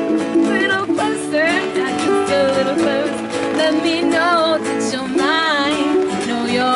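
A woman singing with vibrato over chords played on an acoustic plucked string instrument.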